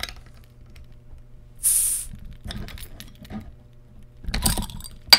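A carbonated soda bottle being opened: a short hiss of escaping gas about two seconds in, followed by clicks and knocks of the cap and bottle being handled, with a sharp click near the end.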